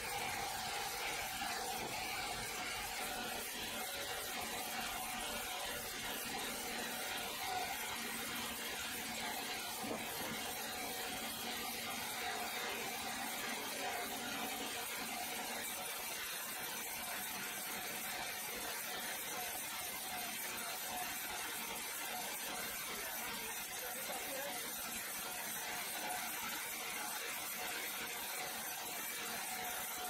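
Horizontal band sawmill running steadily, its band blade cutting lengthwise through a large log, an even machine noise with a faint steady hum.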